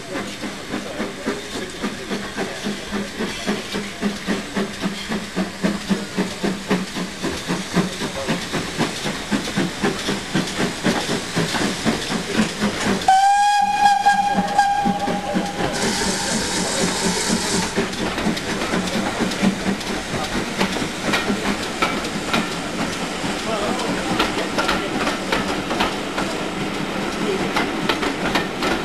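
Great Western steam tank locomotive working a train, its exhaust chuffing in a steady regular beat. About halfway through its whistle sounds once, a single held note lasting a couple of seconds, followed by a short burst of steam hiss, and then the chuffing goes on.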